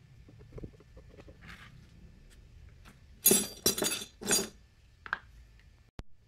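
Steel bolts and small metal parts clinking and rattling together: three quick rattling bursts about three seconds in, then a lighter clink, and a sharp click near the end.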